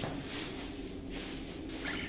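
Caged budgerigars fluttering and rustling, with a brief chirp near the end.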